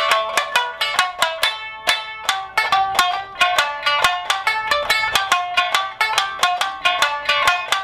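Amami shamisen played solo: a quick melody of sharply plucked notes, several a second, each ringing briefly, with a short gap about two seconds in.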